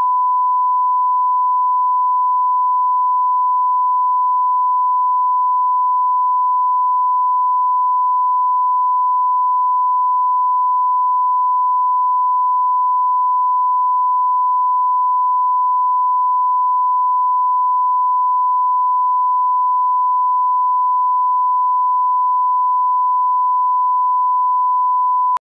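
Bars-and-tone line-up signal: a single steady, pure thousand-hertz reference tone of the kind played under colour bars to set audio levels. It holds unchanged and cuts off suddenly near the end.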